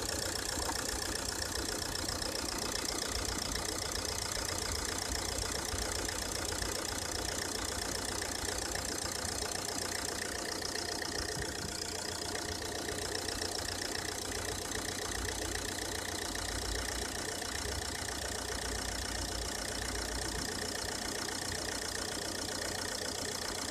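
Ford S-Max engine idling steadily with its alternator drive belt running, the belt freshly sprayed with lubricant to cure a squeal that now seems to have stopped.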